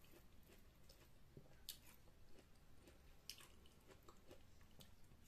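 Faint chewing and biting of juicy watermelon slices, with a couple of soft wet clicks, about a second and a half apart.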